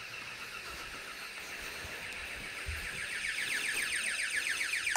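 Texecom Elite 24 burglar alarm sounding a high, fast-warbling alarm tone, louder from about halfway in. It is the tamper alarm, set off by the motion detector's tamper circuit, which shows the tamper is connected.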